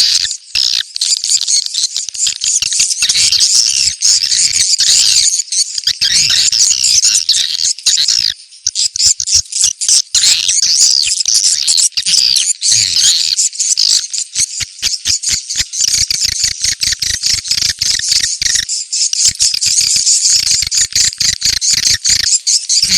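Swiftlet lure call: dense, continuous twittering and rapid clicking chirps of many swiftlets, high-pitched, with a brief lull about eight seconds in.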